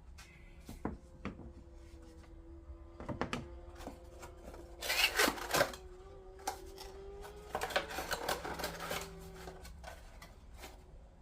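Hands handling small parts and their packaging: scattered clicks and light taps, with two short bursts of rustling about five and eight seconds in.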